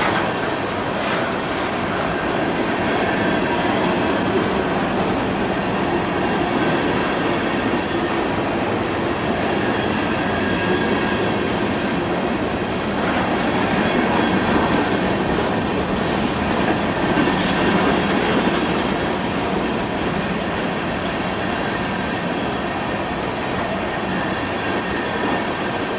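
Train rolling past close by: a steady rumble of wheels on rail with clickety-clack over the joints and faint high wheel squeal partway through.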